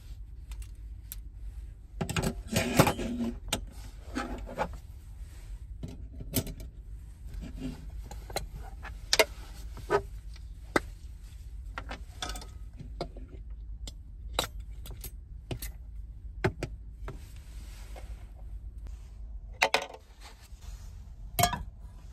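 Metal clinking and rattling as a compact camping gas stove's folding pot supports are opened and the burner is fitted to a gas canister. There is a dense rattle about two seconds in, then scattered single clicks and taps, over a low steady hum.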